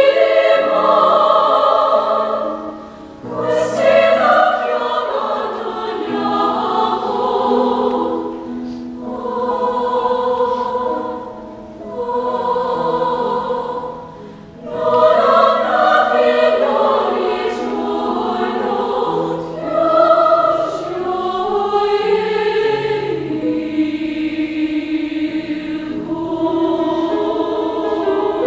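Women's choir singing, with sustained sung phrases separated by brief pauses.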